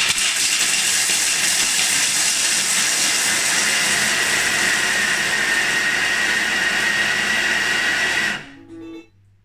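Thermomix food processor at speed 10 chopping milk and dark chocolate pieces: a loud, steady grinding whir with a faint high whine. It runs for about eight seconds and stops abruptly.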